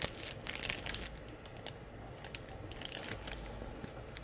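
Clear plastic bag of wax melts crinkling and crackling as it is handled, in scattered short crackles, densest about half a second in and again around two and a half seconds in.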